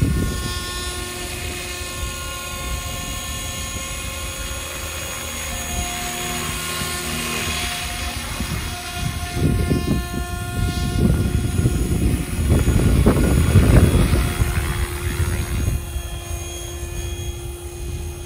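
Radio-controlled model helicopter, a Super Voyager E in a scale Ecureuil body, in flight: a steady whine of several tones that shift in pitch. The sound grows louder, with a rushing noise, for several seconds in the middle.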